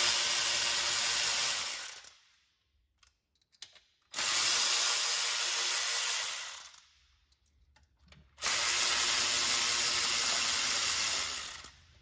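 Cordless electric ratchet spinning out 10 mm intake bolts, running three times for about three seconds each with short pauses between bolts.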